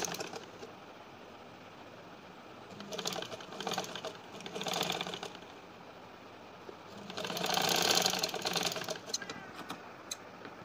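Vintage Singer sewing machine stitching the shoulder seams of a cotton baby shirt in short runs: a brief run at the start, two short runs about three to five seconds in, and a longer run around seven to nine seconds in that builds up and eases off.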